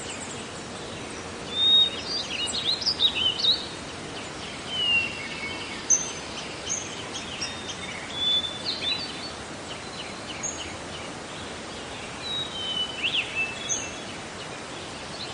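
Birds chirping and whistling in short scattered phrases over a steady background hiss.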